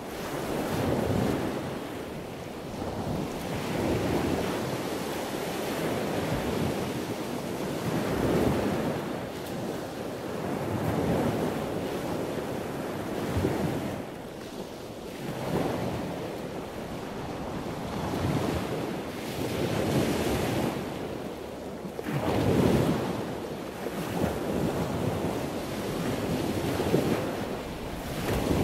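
Sea waves washing in, surging every two to four seconds, with wind noise on the microphone.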